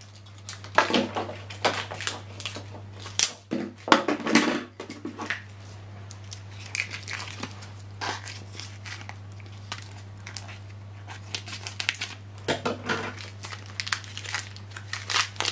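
Plastic packaging of an Epson 604 ink cartridge crinkling and tearing as it is unwrapped by hand, in irregular bursts of crackles. A steady low hum runs underneath.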